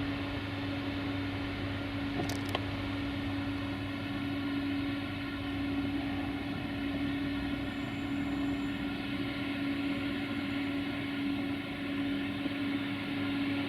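Electric locomotive, a Softronic Transmontana class 480, humming steadily with one even tone over the noise of its cooling fans. Two sharp clicks come about two and a half seconds in.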